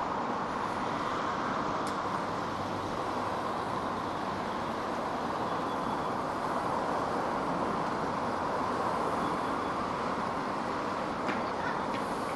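Steady rushing wind and riding noise of a Suzuki DR650 motorcycle on the move, picked up by a small microphone held loose against the rider's cheek.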